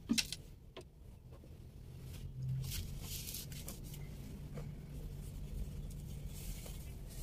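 Baby clothes rustling as they are handled and unfolded, in soft swells, with a couple of light clicks in the first second.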